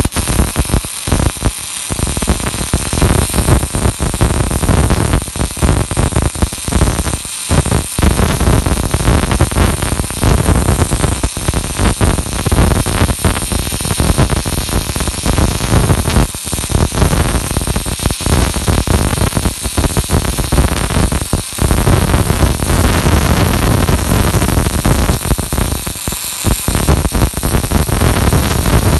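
Welding arc of an automated circumferential welding machine, a loud, continuous crackling and sizzling that starts abruptly, with a few brief breaks.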